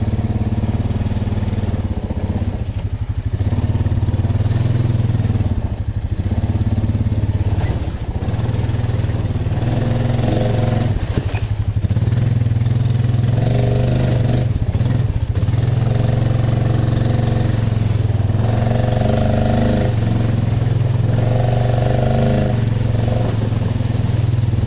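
Honda Rancher 420 ATV's single-cylinder four-stroke engine running steadily at low revs, with a higher hum that swells and fades several times.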